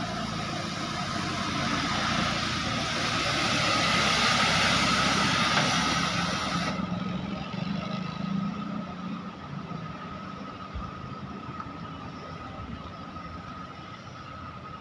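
A heavy road vehicle passing close by: engine and tyre noise swell to a peak about four to five seconds in, then fade to a lower traffic rumble. A faint steady high tone runs underneath.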